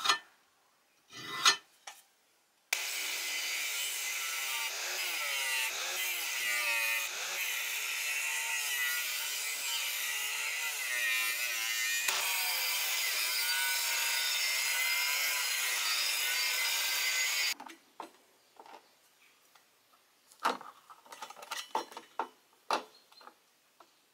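Angle grinder grinding a steel plowshare for about fifteen seconds, its whine wavering as the disc bears on the metal, then cutting off suddenly. A few light knocks and clatter of handling come before and after it.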